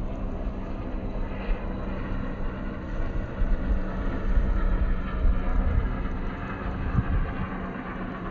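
Steady low engine drone with wind gusting on the microphone, the gusts heaviest about three to six seconds in.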